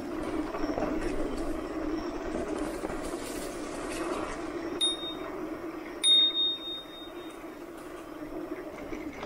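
A handlebar bicycle bell rings twice, about five and six seconds in, the second ring lasting longer. Under it runs the steady hum of an electric mountain bike's motor pushing uphill.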